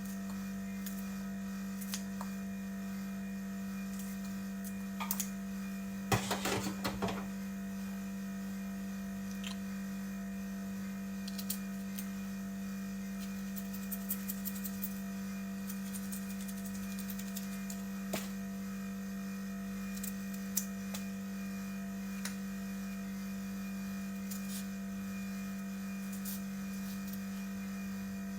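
Steady low electrical hum with scattered light clicks and taps, and a short flurry of clattering clicks about six seconds in.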